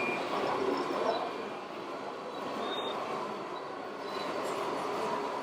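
Radio-controlled model trucks and machines running: a steady mechanical whir of small electric motors and gearing, with faint thin whines over it.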